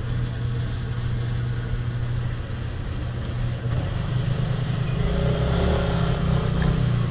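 Petrol being pumped from a fuel dispenser nozzle into a motorcycle's tank, with a steady low mechanical hum that grows a little louder in the second half.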